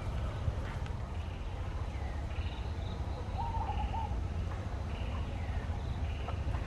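A steady low rumble with faint bird chirps repeating every second or so, and one short wavering call about three and a half seconds in.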